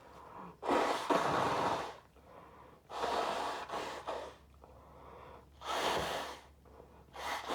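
A man gasping and breathing hard during a sneezing fit: four loud rushing breaths about two seconds apart, the first the loudest.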